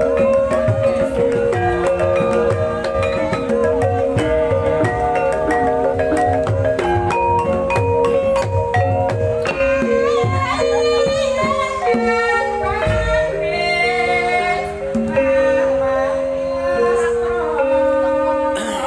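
Javanese gamelan playing: interlocking notes from the bronze keyed metallophones over low drum strokes. A wavering, higher melodic line joins about ten seconds in.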